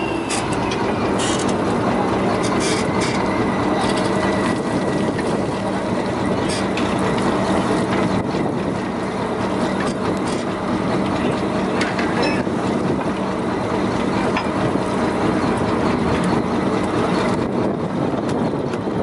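Fishing boat's engine running with a steady drone, with scattered knocks and clatter of gear on deck.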